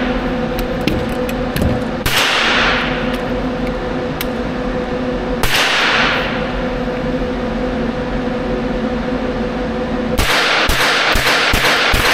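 Two gunshots in an indoor shooting range, about three and a half seconds apart, each followed by a long echoing decay, over a steady hum. Near the end the hum cuts out and music with a fast, even beat comes in.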